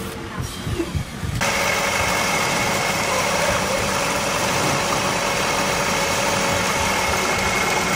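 Motor-driven wood lathe running while a hand-held chisel cuts a spinning wooden spindle. About a second and a half in, the cut starts abruptly: a loud, steady scraping over the motor's hum that holds to the end.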